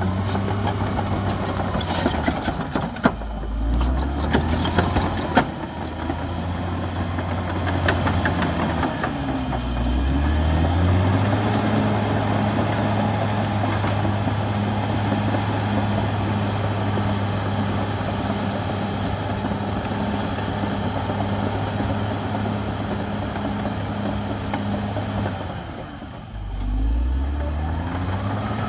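CAT D6R XL bulldozer's diesel engine working, its pitch dipping and climbing again several times, with sharp knocks and clatter in the first few seconds. It then holds steady at high revs for about fifteen seconds, drops near the end and revs back up.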